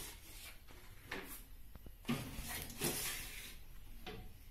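A baking pan going into a Gefest gas oven: clattering and metal knocks from the pan, rack and oven door, with two sharp hits in the middle and the door pushed shut near the end.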